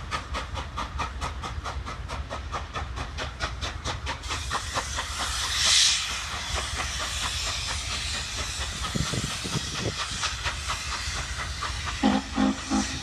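Norfolk & Western Class J No. 611 steam locomotive working past: rapid, even exhaust chuffs, about five a second, that fade after about four seconds as it draws away. A loud burst of steam hiss comes about six seconds in, and three short low-pitched sounds come near the end.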